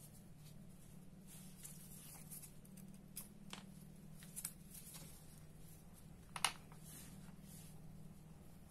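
Faint clicks and taps of tweezers and small metal parts of a Daiwa Seiko Coronet 5 reel being handled during disassembly. The loudest is a sharp click with a brief ring a little after six seconds in, over a low steady hum.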